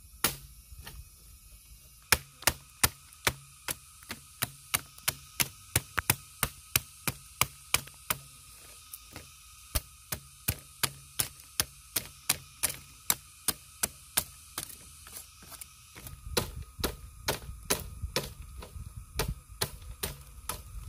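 Machete blade chopping repeatedly into green bamboo, short sharp cracks about three a second, scoring the culm so it can be split and opened flat into a bamboo board. The chopping pauses briefly about three-quarters through, then picks up again.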